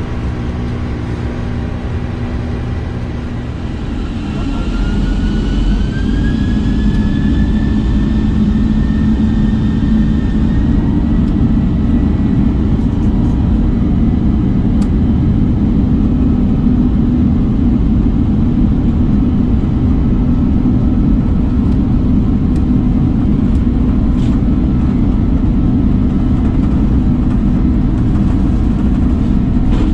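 Boeing 747-200 flight deck in the climb: a steady loud rumble of airflow and engines. It grows louder about four to six seconds in, with a faint rising whine over the next several seconds.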